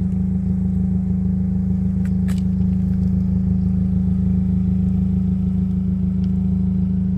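Kia ProCeed GT's 1.6-litre turbocharged four-cylinder petrol engine idling steadily in Sport mode, a constant low hum with no revving.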